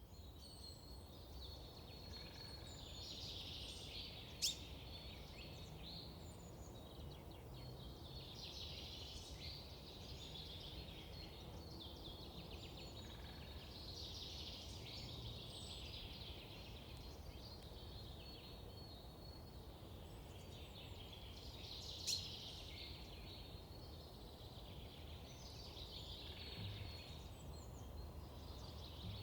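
Faint recording of small songbirds chirping and twittering in repeated waves, over a thin steady high tone. Two sharp clicks stand out, about four seconds in and about three-quarters of the way through.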